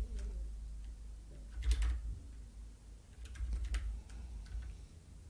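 Typing on a computer keyboard: a few short runs of key clicks with pauses between them.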